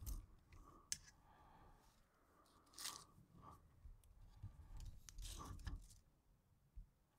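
Near silence: faint wind rumble on the microphone and a few soft crunching rustles, about one, three and five and a half seconds in.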